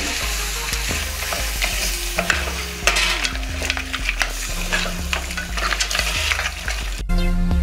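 Wooden spoon stirring yogurt through chunks of goat meat in a pot on the stove, with repeated scrapes and knocks against the pot over the sizzle of the meat cooking. About seven seconds in it cuts to music.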